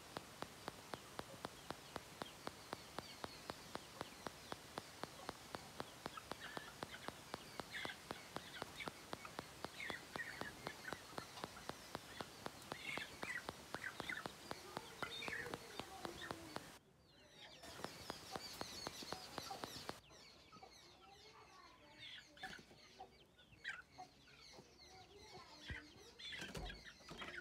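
Young Aseel chickens clucking and chirping in short calls. A steady ticking of about four strokes a second runs under the calls through the first two-thirds, then stops.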